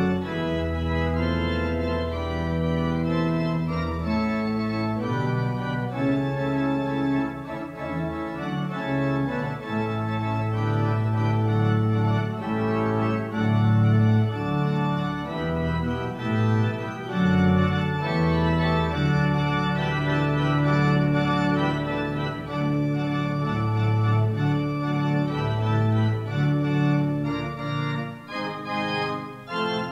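Church pipe organ playing slow sustained chords that change every second or two over long-held low pedal notes.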